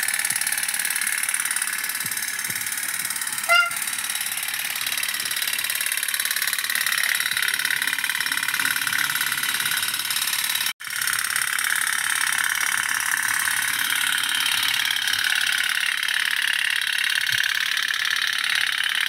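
Toy pop-pop steam boats running in a steel basin of water, their small candle-heated boilers giving a steady, rapid putt-putt, briefly cut about eleven seconds in.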